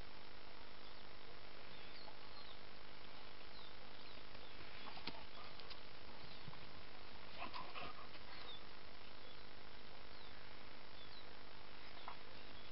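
Outdoor ambience: a steady hiss with faint, short bird chirps now and then, and a couple of brief louder sounds about five and eight seconds in.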